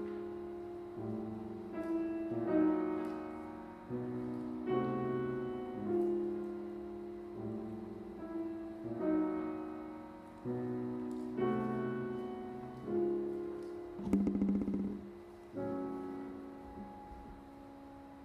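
Solo piano playing the slow closing postlude of an art song after the voice has stopped: chords struck about every second or so, each ringing and dying away, with one louder chord about three-quarters through before the last one fades.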